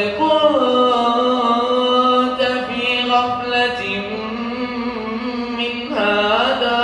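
A man's solo Quran recitation in the melodic tajweed style: one long, ornamented phrase with the voice sliding slowly between held notes, then a short break and a new phrase that rises near the end.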